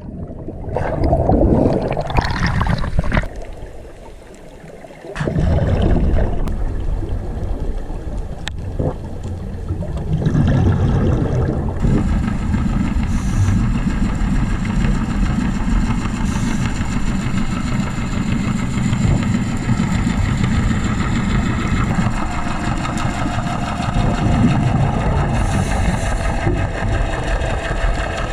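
Boat engine running steadily with a deep hum. Before it settles, the first few seconds hold a short stretch of mixed, uneven sound.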